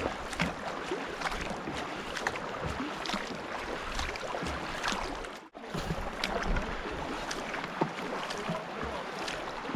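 River water rushing around a racing canoe, with the splash and knock of paddle strokes. The sound cuts out briefly about halfway.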